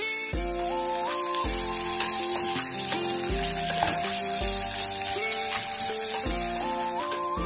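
Sliced onions sizzling as they fry in oil in an aluminium pressure cooker, a steady hiss, under background music with a deep bass note about once a second and a stepping melody.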